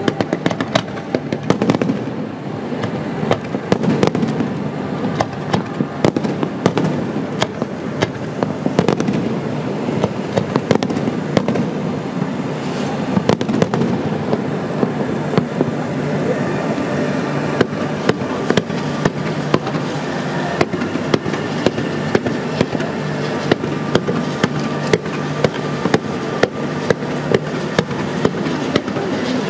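Fireworks display: many firework bangs in quick succession over a continuous crackling din, with the reports falling into a steadier, more evenly spaced run in the second half.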